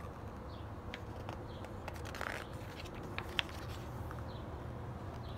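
Pages of a hardcover picture book being handled and turned: a soft paper rustle about two seconds in and a few small clicks, the sharpest a little after three seconds, over a steady low hum.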